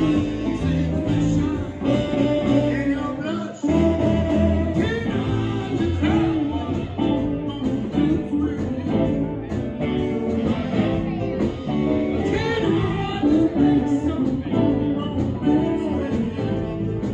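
Live band playing, with a man singing over electric guitar, saxophone, congas and drum kit. The music drops out for a moment about three and a half seconds in, then comes straight back.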